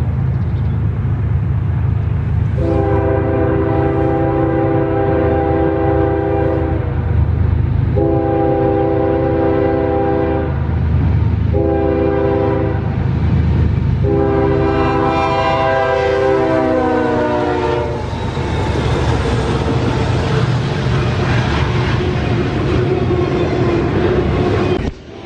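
Diesel freight locomotive's multi-tone air horn sounding the grade-crossing pattern, long, long, short, long, with the last blast dropping in pitch as the locomotive passes. Under it runs the diesel engine's rumble, and then comes the steady rumble and clatter of double-stack intermodal well cars rolling past.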